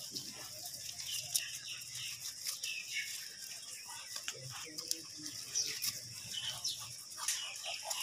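Goat kids tearing and chewing long green leafy fodder, a steady run of crunches and rustles. Small birds chirp repeatedly in the background, in short falling calls.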